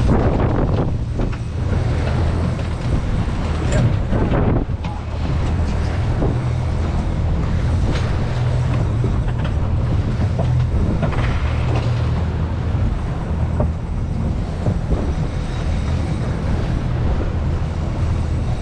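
Three 300 hp outboard motors running at low speed, a steady low hum, mixed with wind on the microphone and water rushing and splashing around the boat.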